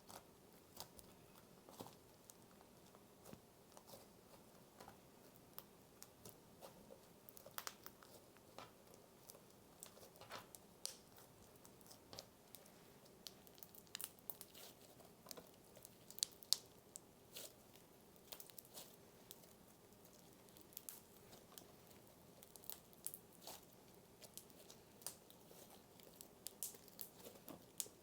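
Cereal slime being slowly pulled and squished by hand, with faint, irregular crunching and crackling from the cereal pieces in it.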